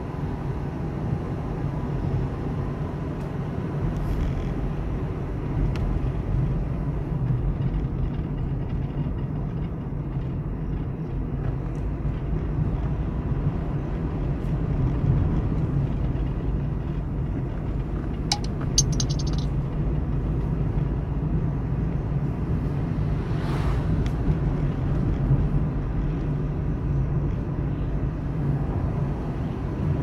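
Steady low rumble of a car's engine and tyres on the road, heard from inside the cabin. A short burst of rapid sharp clicks comes a little past halfway, and a brief hiss a few seconds later.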